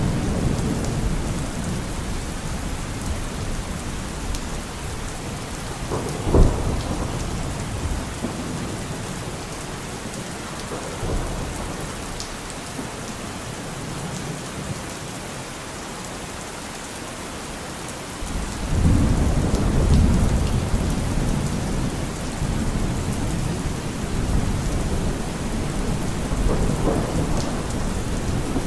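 Steady rainfall in a thunderstorm. A sharp thunderclap comes about six seconds in, and a long low rumble of thunder starts about two-thirds of the way through, with fainter rumbles between.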